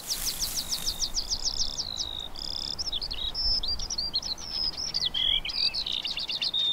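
Birdsong: a fast run of repeated high, falling notes, about six a second, for the first couple of seconds, then varied warbling phrases.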